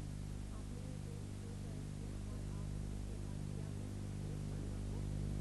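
Faint steady low hum with an even hiss, the background of the soundtrack, with no narration.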